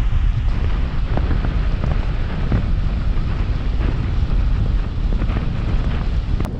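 Wind buffeting the microphone and heavy rain pouring down in a thunderstorm, a steady loud rumble with scattered sharp ticks of raindrops.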